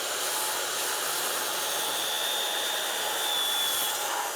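An electric power tool's motor running steadily, then beginning to wind down near the end.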